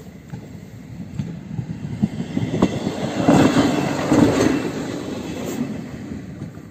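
A ČD class 810 single-car diesel railbus passing over a level crossing. The engine and wheel noise swells to a peak about halfway through, with the wheels clacking over rail joints, then fades as it moves away.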